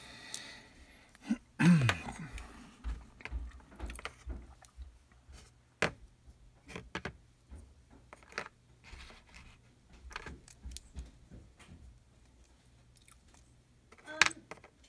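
Small die-cast toy car parts and plastic paint pots being handled on a tabletop: a run of light clicks and taps as pieces are picked up and set down, with a louder clatter about two seconds in and another burst of clicks near the end.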